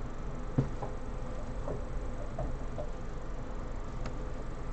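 Steady low room hum with a few faint knocks and ticks from hands handling things, the loudest knock just over half a second in.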